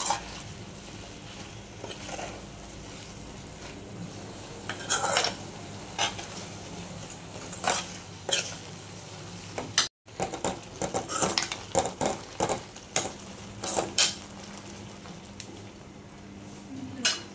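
Metal ladle stirring greens into gravy in a metal pan, with irregular clinks and scrapes against the pan's sides and bottom. A steady low hum runs underneath.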